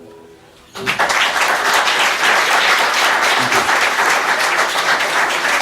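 Small audience applauding as the final acoustic guitar chord fades. The clapping breaks out suddenly about three quarters of a second in and carries on steadily.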